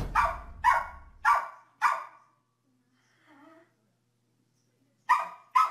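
A small dog barking: four quick barks about half a second apart, a pause of nearly three seconds, then two more barks near the end.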